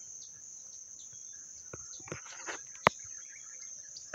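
A steady, high-pitched insect drone, with a few soft scuffs and one sharp click about three seconds in.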